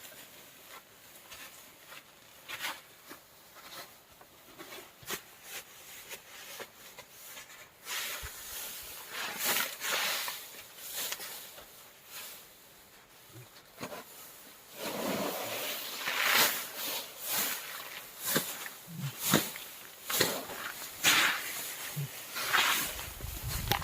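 Irregular rustling and crackling with sharp ticks, getting louder and busier about a third of the way in.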